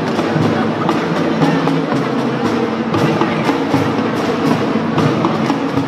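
Kindergarten drum band playing: a steady drum beat with held melody notes over it.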